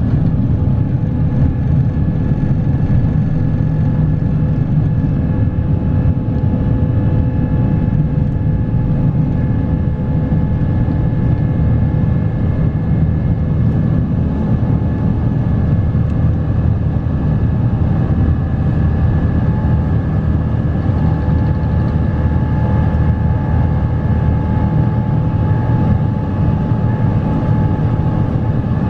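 Cabin noise of a Boeing 777-300ER's GE90-115B engines at takeoff power through the takeoff roll and initial climb: a loud, steady rush with a deep rumble and a few steady whining tones above it. Heard from inside the cabin.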